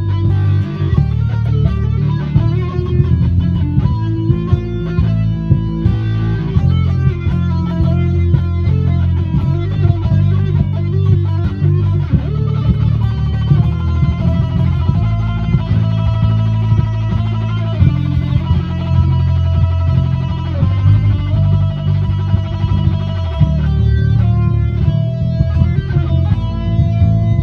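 Electric guitar being played, a continuous run of notes with a heavy low end.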